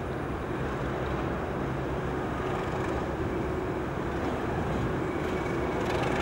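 Class 37 diesel locomotive's English Electric V12 engine running with a steady low note as the locomotive moves slowly through the station.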